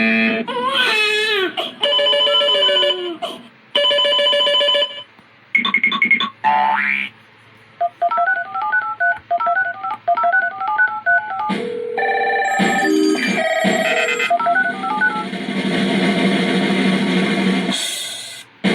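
A string of short radio/TV sound effects played back one after another from a Launchpad Pro: a bending cartoon-like tone, buzzing tones, a phone-like warbling ring, a quick chiming melody, beeps, and a noisy swell near the end.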